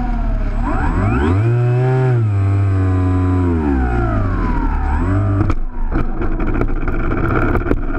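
Electric motor and propeller of a Lanyu FPV Ranger RC plane, heard through its onboard camera, whining up and down in pitch as the throttle is opened and cut. About two-thirds of the way in, the whine drops away and a run of rapid clicks and knocks takes over.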